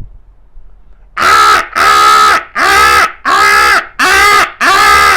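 A person imitating a crow's caw: six loud, harsh calls of about half a second each in quick, even succession.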